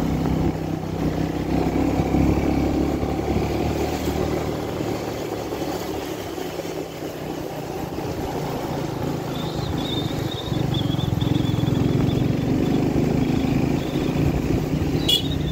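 Motorcycle engine running while riding, easing off around six or seven seconds in and pulling harder again about ten and a half seconds in.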